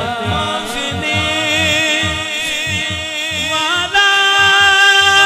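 Male naat reciter singing a long, ornamented melodic line through a PA microphone, stepping up to a higher, louder held note about four seconds in, over a low rhythmic pulse repeating about two to three times a second.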